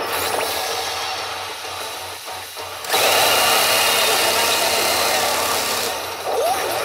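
Pachinko machine (Ginza's P北斗の拳9闘神) playing a battle scene through its speakers: about three seconds in, a sudden loud, dense barrage of rapid-fire punch effects with Kenshiro's 'atatata' cry starts and runs for about three seconds before dropping back.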